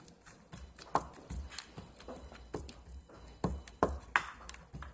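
Slime being squeezed and pressed between the fingers, giving a string of irregular small clicks and pops.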